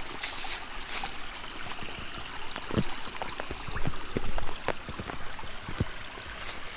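A small stream of water rushing and splashing, a steady flow broken by many short, sharp splashes and drips.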